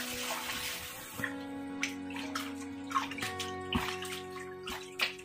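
Tap water running into a plastic bowl in a stainless steel sink for about the first second, then a series of short splashes as pork is rinsed and rubbed by hand in the bowl. Background music with steady held notes plays throughout.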